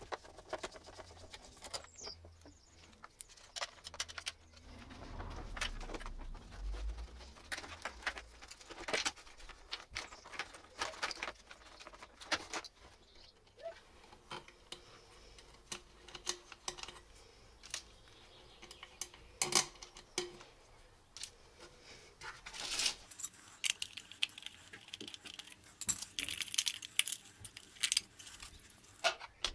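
Hands working on the plastic parts of a motorcycle license plate holder: irregular clicks, clinks and rustles of plastic, small metal parts and paper, with a brief low rumble a few seconds in.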